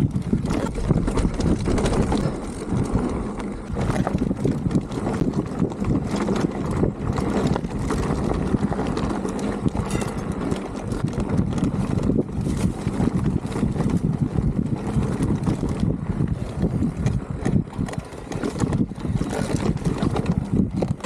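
Electric mountain bike descending a rocky dirt trail: tyres rumbling over dirt and stones, with frequent sharp knocks and rattles from the bike as it rolls over the rocks.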